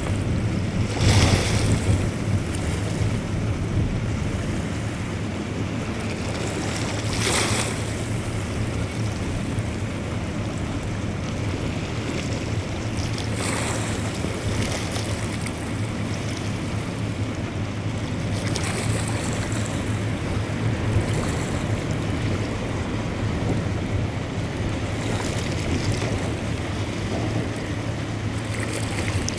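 Wind buffeting the microphone beside open river water, with a steady low drone underneath and swells of hiss every few seconds.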